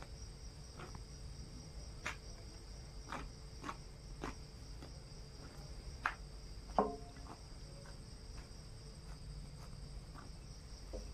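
Crickets chirring steadily in the background while wet feathers are plucked from a scalded chicken in a metal basin. Scattered soft taps come through, and one knock against the basin rings briefly a little past halfway.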